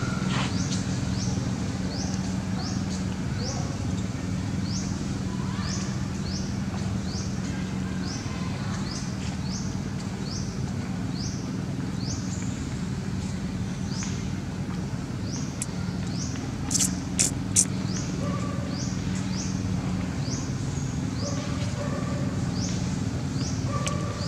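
Forest ambience: a short, high, rising chirp repeating about three times every two seconds over a steady low rumble, with three sharp clicks about seventeen seconds in.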